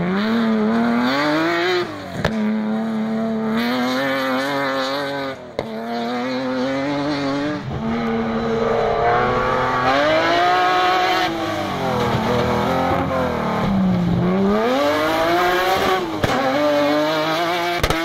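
Off-road rally buggy engines revving hard on dirt stages, several passes one after another. The pitch climbs under acceleration and drops at each gear change or lift.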